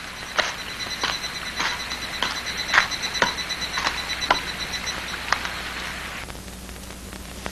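Footsteps at a walking pace, about two a second, stopping a little over five seconds in, over a steady, rapidly pulsing high trill that also ends about five seconds in.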